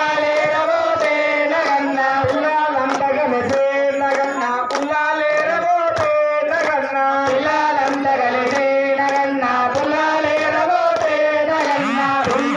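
A group of men chanting a Hindu devotional hymn together with held notes, accompanied by hand clapping.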